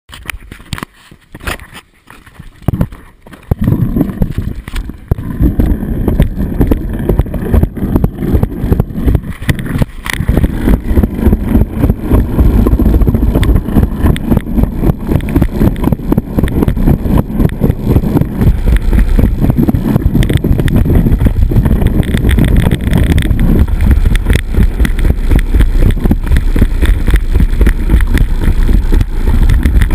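Toboggan sled running down a stainless steel slide trough: a few quiet clicks at first, then from a few seconds in a loud, fast rattling rumble that grows louder as the sled gathers speed and then stays loud.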